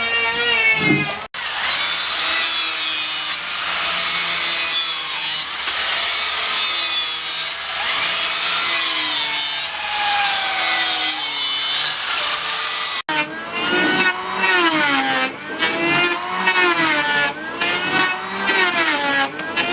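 Power tool working wood: a loud, hissing noise with a shifting pitch that starts and stops abruptly at cuts, about a second in and about 13 seconds in. Before and after it, a voice with a wavering pitch.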